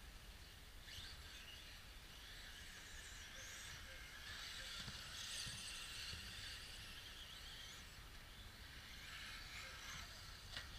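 Radio-controlled model cars racing round the track, a faint high whirring that swells a few seconds in and fades again as they pass, with a low wind rumble on the microphone.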